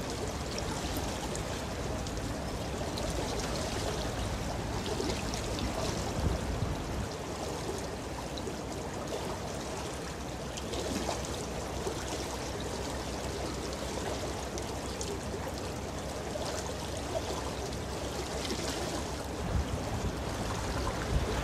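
A ship's wake washing against a concrete riverbank: steady sloshing and trickling water with scattered small splashes.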